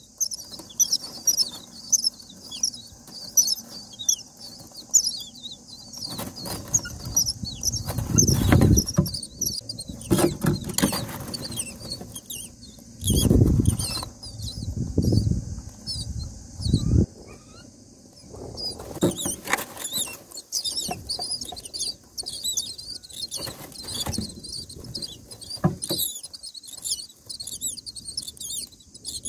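Common myna nestlings giving rapid, high-pitched begging chirps without a break. Between about 6 and 20 seconds in, louder rustling, bumps and wing flaps come from the adult myna moving about in the straw nest as it feeds them.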